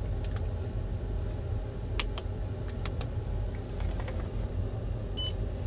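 Fingertip taps and clicks on a Subaru Tribeca's dashboard touchscreen, with one short electronic beep near the end as a press registers. A steady low hum of the car runs underneath.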